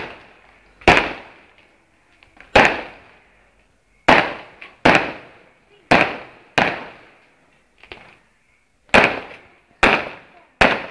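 Fireworks exploding: about ten sharp bangs, spaced irregularly roughly a second apart, each trailing off in a short echoing decay.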